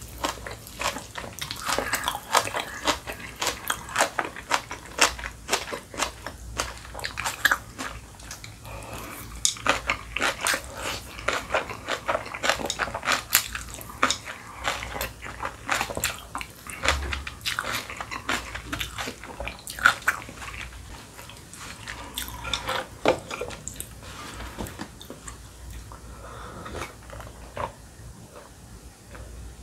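Close-miked eating: slurping and chewing of spicy bibim naengmyeon (chewy cold noodles), with many wet mouth smacks and clicks. Near the end there is a sip of cold broth.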